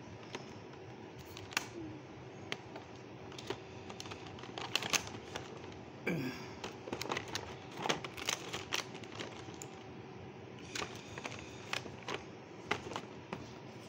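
Stiff cardboard game-board sections being handled and lifted out of a plastic box insert: irregular light clicks and taps.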